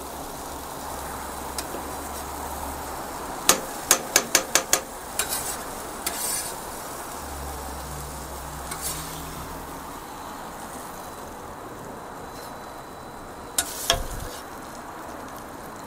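Food sizzling steadily on a steel flat-top griddle, with a metal spatula scraping and clacking against the griddle: a quick run of sharp clicks about three and a half seconds in, a few scattered ones after, and a couple more near the end.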